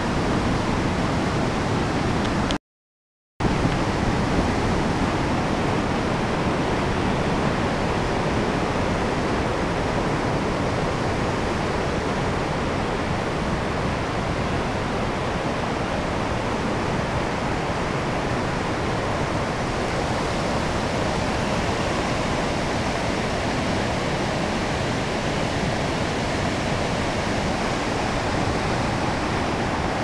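Waterfall and white-water rapids rushing steadily, cut by a brief silent gap about three seconds in.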